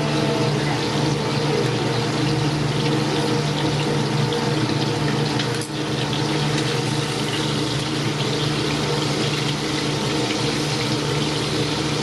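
Lobster meat sizzling as it fries in a pan of hot oil, a steady frying hiss over a constant low hum.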